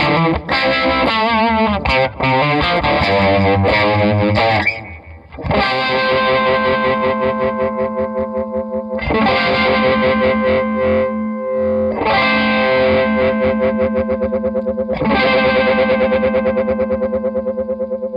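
Distorted electric guitar played through a Uni-Vibe-style vibe effect, RFO Electronics' vibe module for the Electra guitar. A wavering lick comes first, then held chords are struck about every three seconds. Near the end the chords throb in a quick, even pulse.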